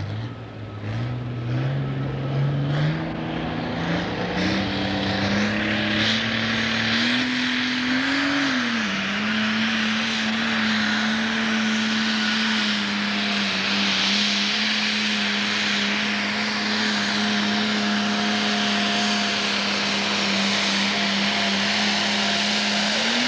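Pro Stock pulling tractor's turbocharged diesel engine under full load on a pull. The engine note climbs in steps over the first several seconds, dips briefly, then holds steady at high revs.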